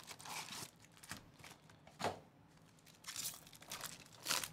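Plastic wrapper of a trading-card pack crinkling and tearing as it is ripped open by hand, in several rustling bursts with a sharp snap about two seconds in.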